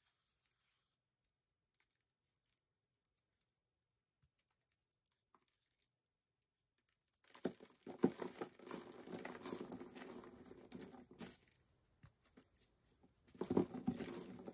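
Reformed gym chalk block crushed in a hand, crunching and crumbling dry as the powder falls away. It is almost silent at first, then comes a bout of crunching about seven seconds in lasting some four seconds, and a second bout near the end.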